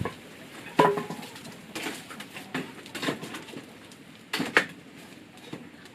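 Irregular knocks and clatters of hard objects being handled. The loudest comes about a second in and rings briefly, and another close pair follows past the four-second mark.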